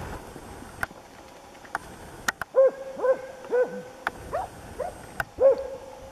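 Grey Norwegian elkhound bay-barking at a brown bear, a hunting dog holding the bear: about six barks in quick succession starting around two and a half seconds in, with a few sharp clicks between.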